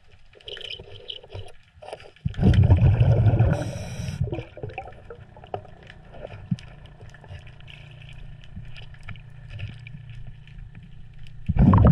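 Underwater: a scuba diver's exhaled bubbles gurgling in two loud bursts, one about two seconds in and one near the end. Between the bursts there are faint clicks and scrapes over a steady low hum.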